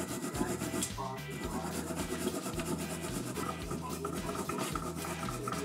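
A brush scrubbing a wet, degreaser-soaked bicycle coaster brake assembly in a stainless steel bowl, in quick rasping strokes, over background music with a steady bass line.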